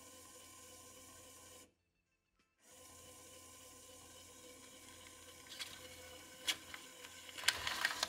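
A paper banknote crackling and rustling in the fingers as it is pushed into the slot of a LEGO WeDo 2.0 model. There are several short crackles, the loudest near the end, over a faint steady hiss, and the sound drops out completely for about a second early on.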